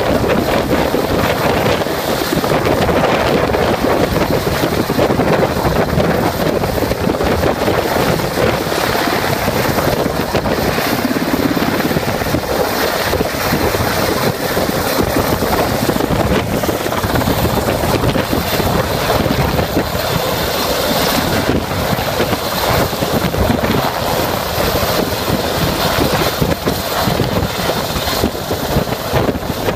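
Loud, steady helicopter rotor and engine noise mixed with heavy wind buffeting on the microphone, as from rotor downwash over open ground.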